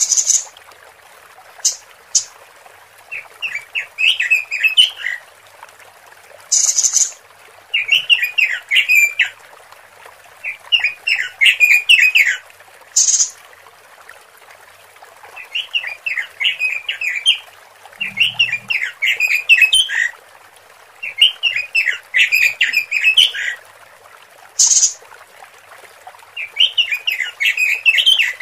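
Female Pekin robin (red-billed leiothrix) calling, played as a lure to draw males. Bouts of fast chattering notes, each a second or two long and repeated every few seconds, alternate with short high hissing bursts.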